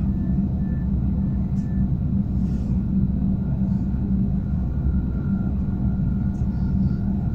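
Steady low hum and rumble from a Serbian Railways series 413/417 Stadler FLIRT electric train standing at the platform with its doors open, with a faint thin tone above it.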